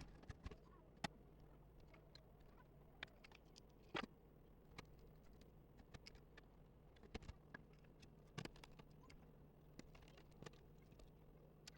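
Faint, scattered clicks and taps of a laptop's parts being handled during repair, a few seconds apart, over a low steady hum.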